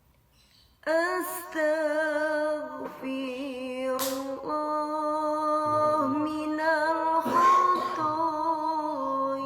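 A solo voice singing a slow, ornamented Arabic devotional chant, with wavering vibrato on long held notes, starting about a second in after a brief silence.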